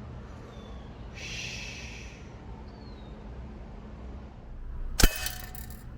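A single air-rifle shot about five seconds in: one sharp crack followed by a short ringing. Earlier comes a breathy hiss lasting about a second.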